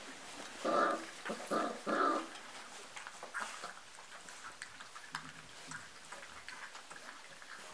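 Golden Retriever puppies, about four and a half weeks old, give three short vocal calls in quick succession about a second in. Faint clicks and scuffling in wood shavings follow.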